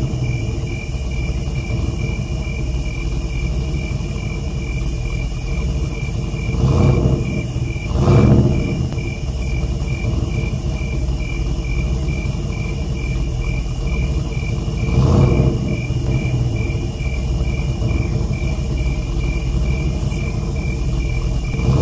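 Pickup truck engine sound effect running with a steady low rumble, swelling louder three times as it strains to pull a car from mud. Crickets chirp in an even, fast pulse over it.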